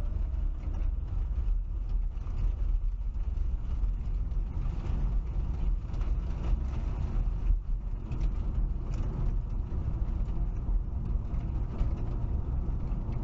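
Car engine and road noise heard inside the cabin: a steady low rumble as the car pulls away and speeds up from walking pace to about 36 mph.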